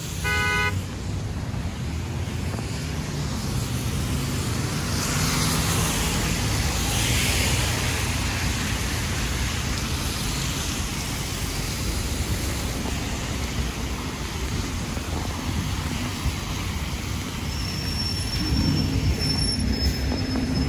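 Street traffic on a wet road: a steady rumble and tyre hiss, swelling as vehicles pass by. A brief pitched beep sounds right at the start.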